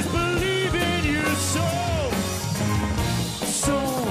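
Music: a sweeping melody gliding up and down over sustained low notes, with a bright cymbal-like crash about a second and a half in and another near the end.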